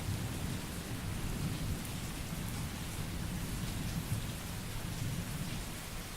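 Steady heavy rain with a low rolling rumble of thunder underneath, the rumble easing toward the end.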